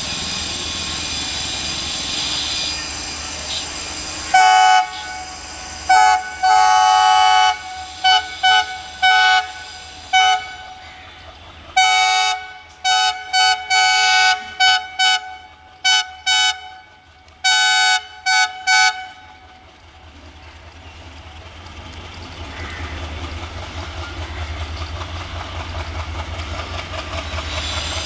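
Indian Railways WDM-3A diesel locomotive sounding its air horn in a rapid, irregular run of short and long blasts for about fifteen seconds, a playful honking pattern. Around the blasts the locomotive's diesel engine rumbles, and it grows louder near the end as the train pulls away.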